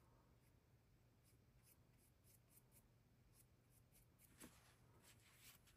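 Near silence, with faint scratchy strokes of a paintbrush dragging across a painting panel, one slightly louder stroke about four and a half seconds in.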